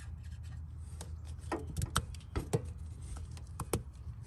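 Plastic oxygen-sensor wiring connector handled and pushed together by hand: rubbing and several small, sharp plastic clicks and taps, clustered from about a second and a half in to near the end, over a steady low background hum.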